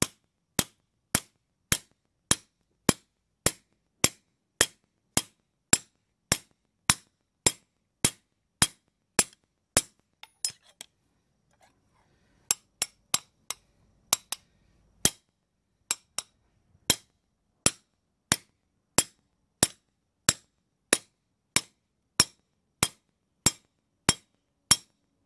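Hand hammer striking a steel strap hinge over a round steel rod on a leather sandbag, a little under two sharp metallic blows a second. There is a short break with a few lighter taps about ten seconds in, then the steady blows resume. The hinge is being cold-bent to a radius around the rod.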